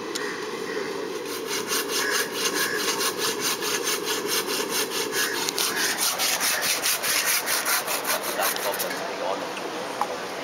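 Rhythmic scraping strokes, several a second, that start about a second in and stop about nine seconds in.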